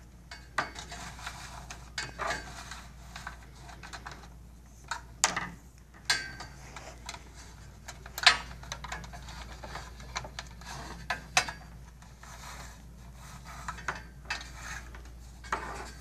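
Irregular clicks, taps and rubbing of a cable being fed along the channel of a metal infrared-barrier tower, with hands knocking against the rails and plastic clips; the loudest knock comes about eight seconds in. A faint steady low hum runs underneath.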